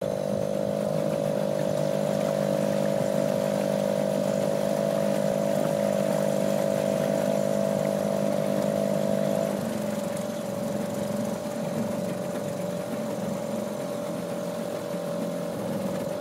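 A small boat's motor running steadily under way. About ten seconds in, its note changes and it gets a little quieter.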